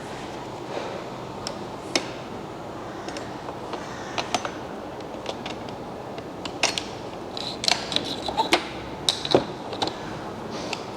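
Scattered small clicks and a few short creaks as the parts of a Tesla Model S door handle assembly are handled and fitted together, over a steady workshop hum.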